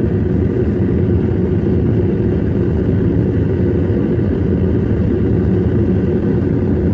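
Propane burner of a homemade metal-melting furnace running at full blast, a loud steady rushing sound that is heaviest in the low end.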